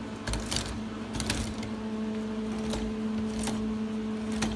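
Scattered light metallic clicks and rattles as a mini bike's chain and spring-loaded idler pulley, made from an engine belt-tensioner pulley, are worked by hand, taking up the chain slack and springing back. A steady low hum runs underneath.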